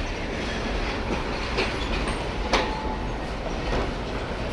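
Pakistan Railways passenger train pulling slowly into a station platform, its wheels clicking over the rail joints under a steady rumble, with one sharp clank about two and a half seconds in.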